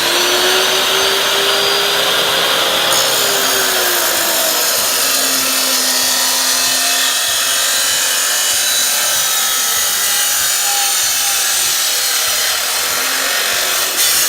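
Power saw cutting through an intake pipe: a loud, continuous cutting noise with a whining tone that shifts in pitch as the blade bites. It stops shortly before the end.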